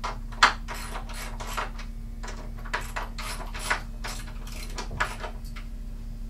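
Irregular run of short knocks and clicks from a hardwood loft bed's frame and hardware being handled during assembly, the loudest about half a second in.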